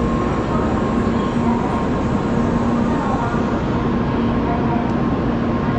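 Shinkansen bullet train standing at the platform as its doors close: a steady, loud running noise, with a low hum that comes and goes.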